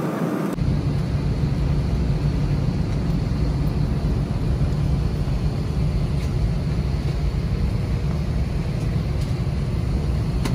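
Steady low rumble of a jet airliner heard from inside the passenger cabin as it taxis to the runway, cutting in abruptly about half a second in.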